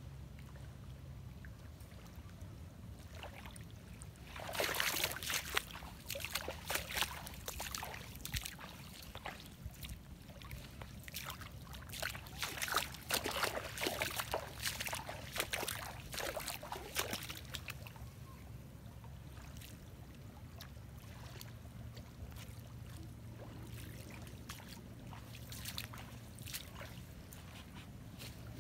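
Irregular splashing, sloshing and crackling in shallow mangrove water, in clusters from about four seconds in until about seventeen, over a steady low hum.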